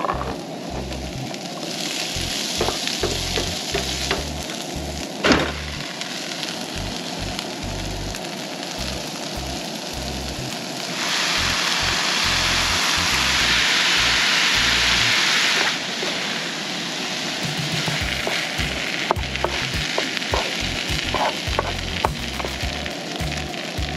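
Vegetables and rice frying in a skillet on a propane camp stove, with a steady sizzle and a spatula scraping and tapping against the pan. The sizzle grows louder for about five seconds just before the middle, when the rice goes in.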